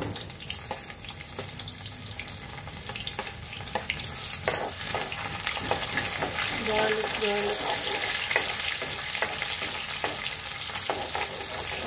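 Chopped garlic sizzling in hot oil in a wok, stirred with a metal ladle that scrapes and clicks against the pan. The sizzle grows louder a few seconds in as the garlic is fried until fragrant.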